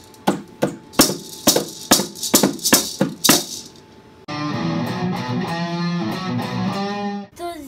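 Hand percussion: a maraca shaken and a pair of bongos slapped in a quick steady beat of about three strikes a second, stopping about three and a half seconds in. A short guitar music sting follows for about three seconds and cuts off near the end.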